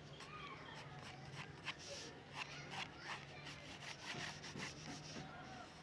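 Quick short strokes of a drawing tool scratching on paper as water is sketched in, with a faint steady low hum underneath.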